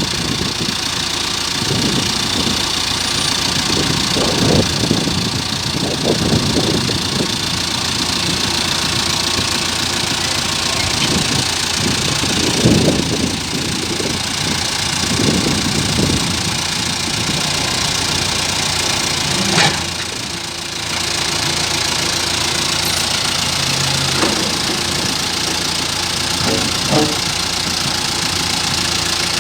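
Excavator's diesel engine running steadily, with uneven low surges as the machine works, and a single sharp knock about two-thirds of the way through.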